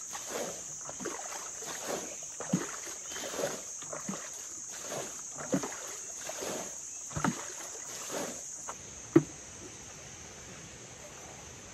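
Shallow muddy pond water splashing and sloshing in uneven strokes, about one or two a second, from people wading and scooping for fish, over a steady high insect drone. The splashing stops about nine seconds in, right after one sharp knock.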